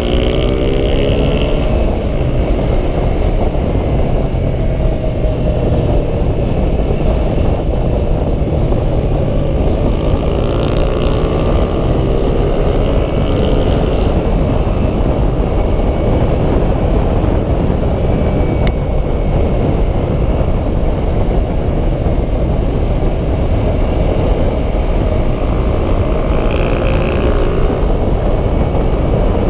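Heavy wind rush over the microphone of a sport motorcycle at road speed, with the engine's pitch rising several times as it accelerates.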